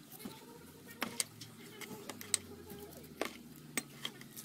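Metal CVT parts of a Kymco scooter, the variator pulley and its metal sleeve, being washed by hand in a basin, with a handful of sharp metal clinks as they knock against each other and the tub.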